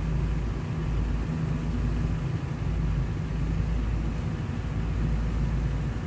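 Steady low rumble of heavy diesel engines: a Sumitomo 210 excavator working as it loads a dump truck.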